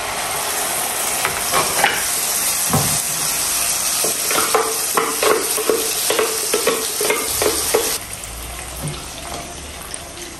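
Blended chilli, shallot, garlic and turmeric paste hitting hot oil in a pan: loud sizzling and spitting, with repeated sharp knocks of the blender jug against the pan as the thick paste is shaken out. The sizzle drops to a quieter level about eight seconds in.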